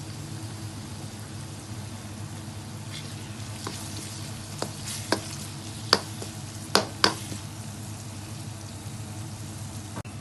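Chicken bhuna frying in a pan while it is stirred, a steady sizzle over a low hum. About five sharp clacks of the utensil against the pan come in the middle.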